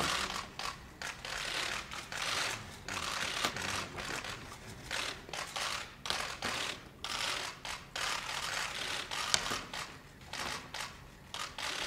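Many camera shutters clicking in rapid, overlapping bursts with short pauses between, with one sharper click about nine seconds in.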